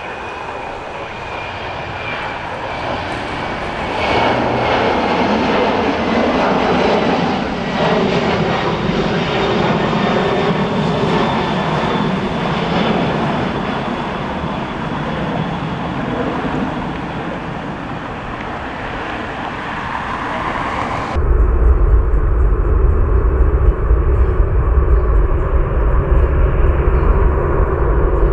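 Boeing 767 freighter jet passing with its engines running loud, a high whine slowly falling in pitch over the rush. About 21 seconds in, the sound abruptly turns to a heavy deep rumble.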